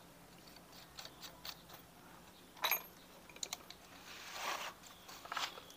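Faint small metal clicks and clinks as cylinder head nuts and brass washers are fitted by hand onto the head studs of a Yamaha Crypton engine, with a sharper clink about two and a half seconds in and a brief scrape a little later.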